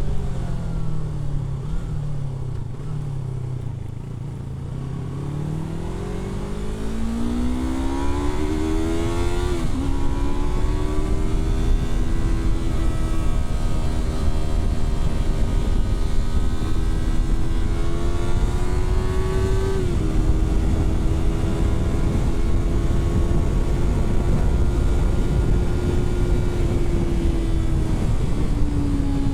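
Yamaha R3's parallel-twin engine heard from the rider's seat. Revs fall for the first few seconds, then climb as the bike accelerates, with a quick upshift about ten seconds in and another around twenty seconds. It then cruises at steady revs, with a constant low wind rumble underneath.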